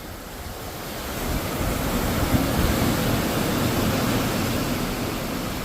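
Ocean waves rushing and washing, swelling about a second in to a peak midway and then easing off a little.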